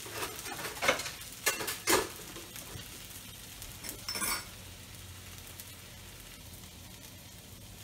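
Fried rice sizzling faintly in a wok. A few sharp knocks and clinks of dishes and utensils come in the first half, the loudest about one and two seconds in.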